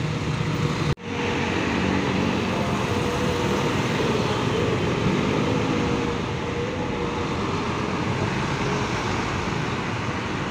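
Heavy road traffic: large bus engines running at low speed as coaches creep past close by, over a steady rumble of jammed traffic. The sound cuts out briefly about a second in.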